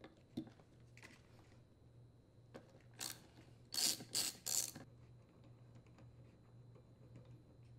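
Ratchet wrench clicking as it loosens the mounting bolts of a leaf blower's plastic impeller, in scattered faint clicks with a louder run of three ratchet bursts around four seconds in.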